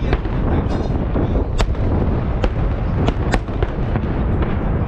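Festive fireworks salute: a constant heavy low rumble of bursting shells, with about half a dozen sharp cracking bangs on top. The loudest crack comes about a second and a half in, and a quick run of cracks follows around three seconds in.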